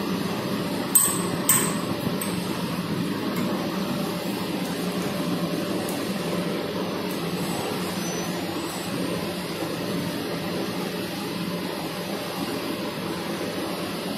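Two sharp metallic clinks a second or so in, from the steel screw grips of a tensile tester being tightened on a laminate strip, over a steady hum.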